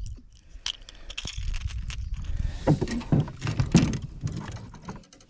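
Small metal clinks from a snap clip and treble hooks as a topwater pencil lure is clipped onto the line and handled, over a steady low wind rumble on the microphone. A louder stretch of low, pitched sounds falls in the middle.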